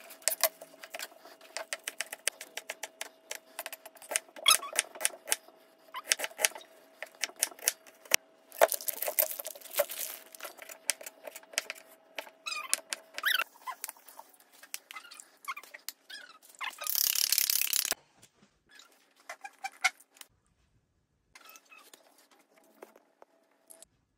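Knife chopping on a bamboo cutting board: many quick, irregular strokes, cutting green onions and then Chinese sausage. About two-thirds of the way through there is a short, loud rustling rush. After that only scattered light handling sounds remain.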